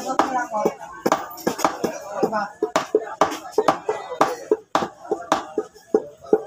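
Meat cleaver chopping raw pork into small pieces on a thick round wooden chopping block, sharp irregular chops about three a second. Voices talk in the background.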